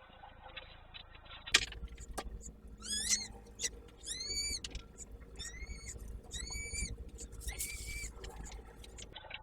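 A bird calling about five times, roughly a second apart. Each call is a clear, arched note with overtones, the first one rising. A sharp click comes just before the calls.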